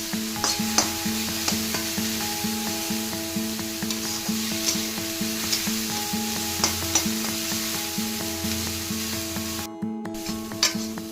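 Food sizzling as it fries in a hot pan, with the sharp clicks of a utensil stirring it. Background music with a steady beat plays over it, and both break off briefly near the end.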